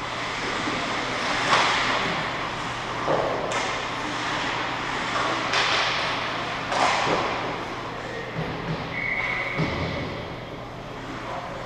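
Ice hockey play in an indoor rink: a steady wash of skate and rink noise with several sharp knocks and clacks of pucks and sticks against the boards and ice. A short steady high tone sounds near the end.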